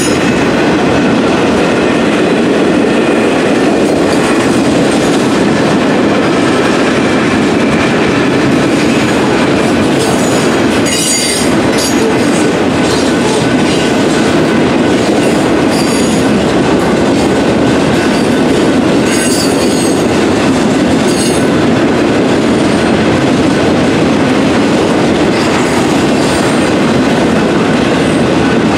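Union Pacific freight train's boxcars rolling through a grade crossing: a loud, steady rumble of steel wheels on the rails with the clickety-clack of rail joints, and a couple of brief high wheel squeals midway.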